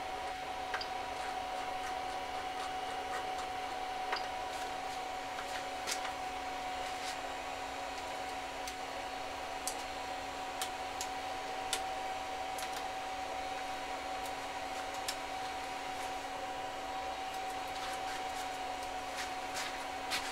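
Steady whirr of a laser-engraver conversion of a 3D printer, its cooling fans and electronics running with a constant high whine and a lower hum, broken by scattered sharp clicks.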